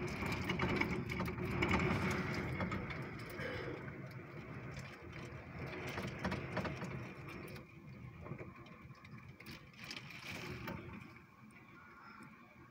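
Heavy rain pattering and ticking on a window pane while a strong gust of wind rushes past. The gust swells in the first couple of seconds and then slowly dies down.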